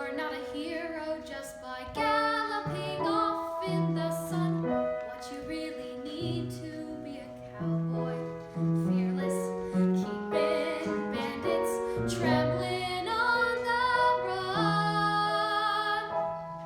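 A child singing a musical-theatre song with piano accompaniment, holding long notes with some vibrato.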